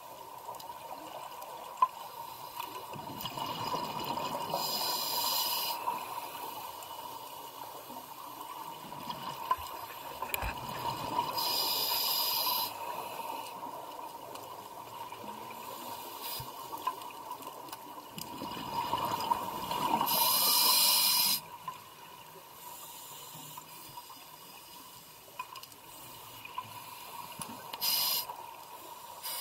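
Scuba diver breathing through a regulator underwater: a hissing, bubbling breath comes four times, about every eight seconds, with low rushing in between. A steady faint tone runs underneath.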